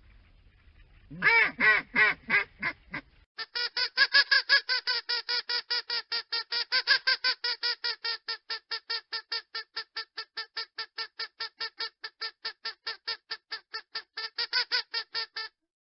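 Duck quacking: a handful of loud quacks, then a long fast run of evenly spaced quacks, about five a second, that stops abruptly.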